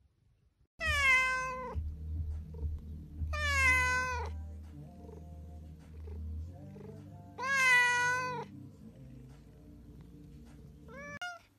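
Oriental Shorthair cat meowing four times: three long, drawn-out meows a few seconds apart, then a short one near the end, over a faint low hum.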